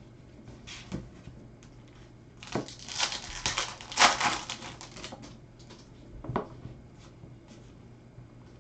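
A trading-card pack's plastic foil wrapper crinkling and tearing as it is opened: a burst of crackling starts about two and a half seconds in and lasts about three seconds, with a single click before it and another after.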